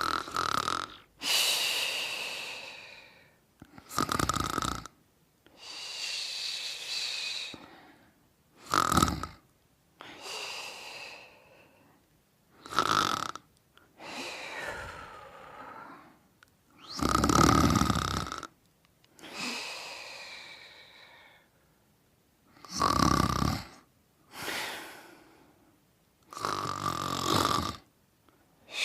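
Snoring in deep sleep: a short, loud snore alternates with a softer, longer breath that fades away, in a steady rhythm of about one breath every four seconds.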